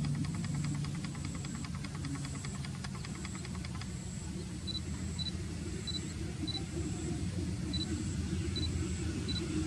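Low rumble of an approaching train, growing louder near the end, with a fast, even ticking over the first few seconds.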